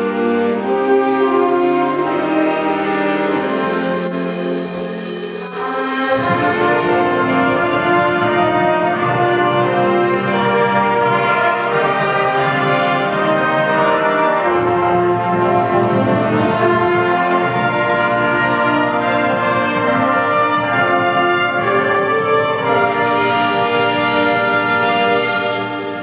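School concert band playing, brass-led, in sustained full chords. About six seconds in, the lower instruments come in and thicken the sound, and the band plays on at full strength until it drops away at the very end.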